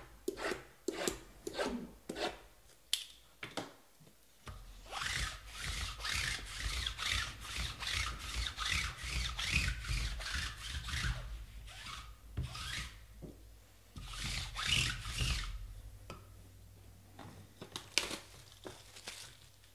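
Hands handling cardboard trading-card boxes. After a few light taps come long stretches of rapid rubbing and scraping strokes of cardboard, then a few sharp clicks as a box is opened near the end.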